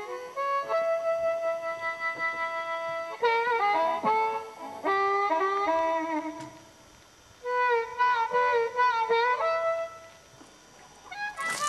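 Background music: an instrumental melody of held notes and quick runs, breaking off briefly twice, about halfway through and near the end.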